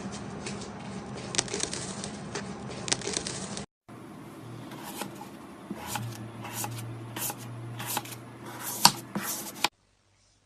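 Slime being squished and worked by hand: crackling, clicking and squelching, with sharp pops among it. It cuts to another slime clip about four seconds in and drops out near the end.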